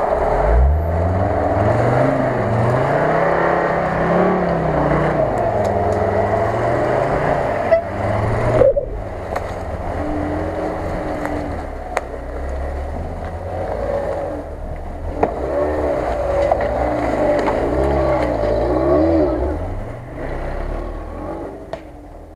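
UAZ-469 off-road 4x4 engine revving up and down under load as it crawls through brush. Partway through, a Lada Niva's engine takes over, revving unevenly as it climbs through and pulls away.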